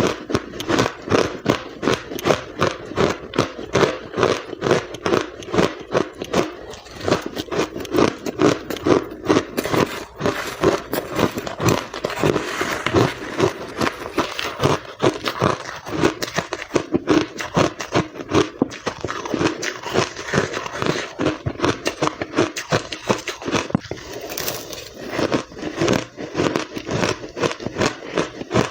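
Close-up chewing and crunching of ice, a steady run of quick crunches, a couple or more a second.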